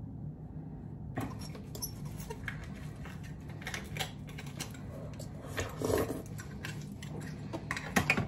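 Someone eating a raw oyster from its shell: a run of small wet clicks and smacks of slurping and chewing from about a second in, with a louder burst about six seconds in.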